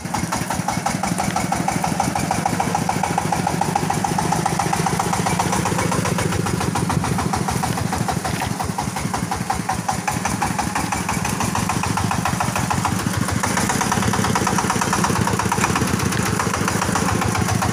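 Engine of a small self-propelled concrete mixer running steadily, with a fast, even pulse.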